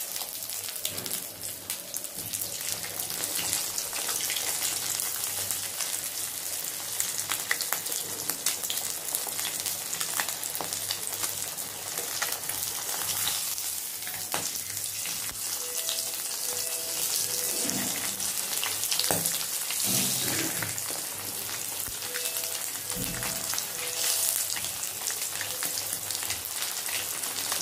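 Semolina-coated fish pieces shallow-frying in hot oil in a kadai: a steady crackling sizzle, with tongs now and then turning a piece.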